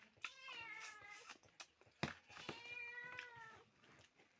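A cat meowing twice, each meow about a second long, with a sharp click between the two meows.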